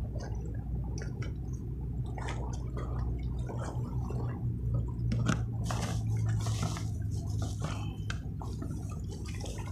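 Steady low rush of a flooded river, with scattered light rustles and small clicks over it.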